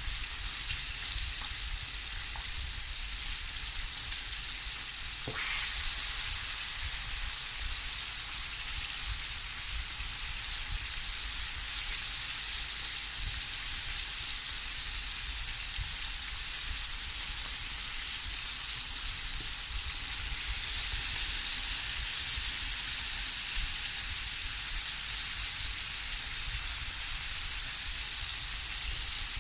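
Flour-coated chicken wings sizzling steadily as they deep-fry in a pot of hot oil over medium heat, with one faint click about five seconds in.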